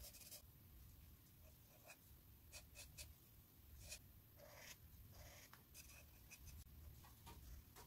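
Faint, scratchy strokes of an alcohol marker nib rubbed back and forth on thin 110 g/m² sketchbook paper, in short, irregular strokes while colour is laid in.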